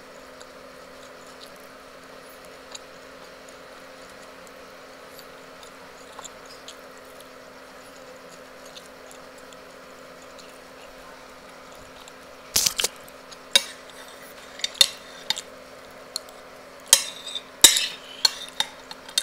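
A metal spoon clinking and scraping against a ceramic plate in a string of sharp, bright strokes, starting about two-thirds of the way in. Before that there is only a quiet room with a steady low hum.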